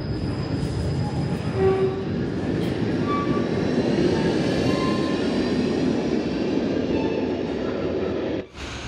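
Tram pulling out of an underground platform and running past close by: a steady, dense rumble of wheels and motors, with short wheel squeals now and then.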